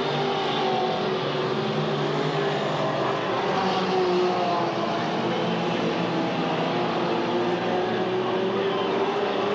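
Stock car engines running hard around a dirt track, several engine notes rising and falling as the cars rev through the corners.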